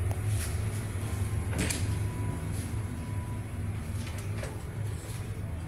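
Cabin door on a merchant ship being unlatched and opened, a few clicks and knocks with the loudest just under two seconds in, over the steady low hum of the ship's machinery.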